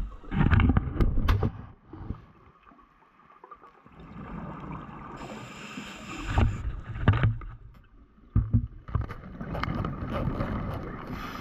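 Scuba diver breathing underwater through a regulator. Bursts of bubbling exhaust come near the start and again through the second half, with a short hiss of inhaling from the regulator in between.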